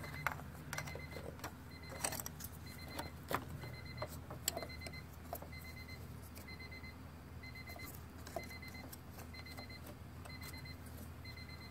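Faint electronic warning beeps, short high tones repeating evenly about once a second, with scattered clicks from wiring and connectors being handled.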